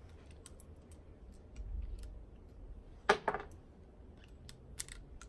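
Small metallic clicks and rattles of cartridges and a Smith & Wesson J-frame revolver's cylinder being handled, with one sharper double clack about three seconds in.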